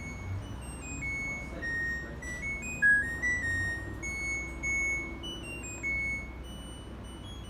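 Washing machine's control panel playing a short electronic melody: a string of single beep notes stepping up and down in pitch for several seconds, over a low steady hum.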